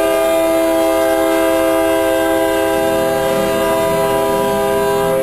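Locomotive horn sounding one long, steady blast, a chord of several notes held without change, which cuts off near the end.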